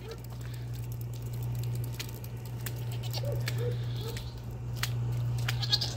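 Rain pattering on a soaked farmyard, with scattered sharp drip taps over a steady low hum.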